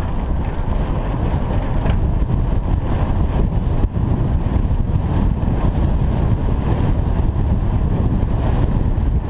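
Wind buffeting the microphone of a camera on a moving mountain bike, a steady low rumble mixed with the rattle of riding over a rough dirt track.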